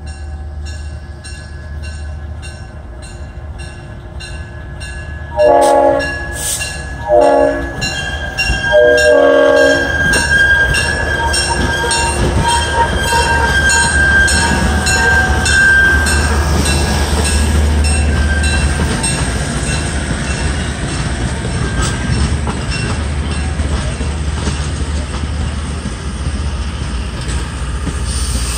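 Diesel locomotive sounding its horn in three blasts, the middle one shortest, then its engine rumbling past as the passenger cars follow, their wheels squealing on the curving track. A bell rings steadily through it all.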